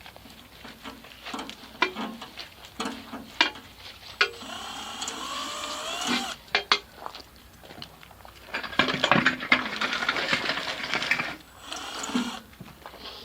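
Screw gun driving screws into sheet-metal sides: two runs of the motor, the first rising in pitch as it spins up, the second a few seconds later, with clicks and knocks of handling in between.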